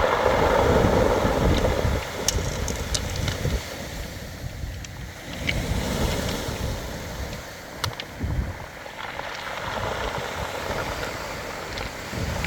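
Waves surging up a beach of round pebbles in repeated swells, with sharp clicks of stones knocking together, and wind buffeting the microphone.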